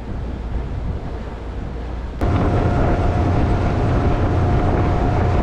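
Motorboat engine running, with wind buffeting the microphone. About two seconds in it abruptly gets louder, with a steady whine over a low hum.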